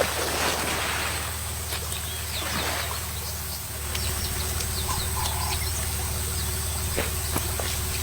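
A steady low motor hum that steps up slightly about halfway through, with a few short high bird chirps in the middle and scattered light clicks.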